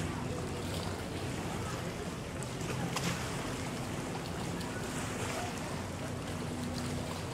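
Distant motorboat engine droning steadily across the water, under a steady hiss of wind on the microphone.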